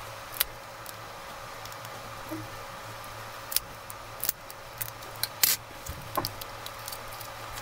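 Scattered sharp clicks and small scrapes of pry tools working a glued lithium-polymer battery loose from a Wiko View 2 smartphone frame, the battery's adhesive softened with isopropyl alcohol. A steady low hum runs underneath.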